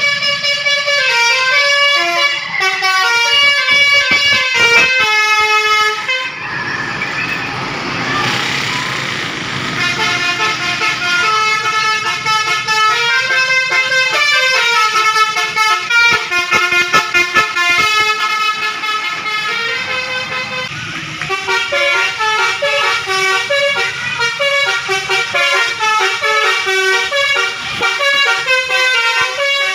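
Basuri 'telolet' bus horn, a multi-trumpet air horn, playing a fast stepped melody one note after another. About six seconds in the tune gives way for a few seconds to a hazier, noisier sound, then the melody starts again.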